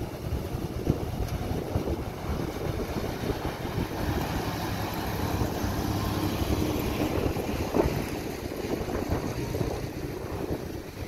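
Excavator's diesel engine running steadily, mixed with wind noise on the microphone. Two sharp cracks stand out, about a second in and near eight seconds in.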